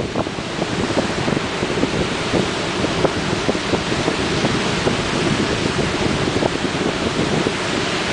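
Ocean surf rushing steadily, with wind buffeting the camera's microphone in rapid low flutters.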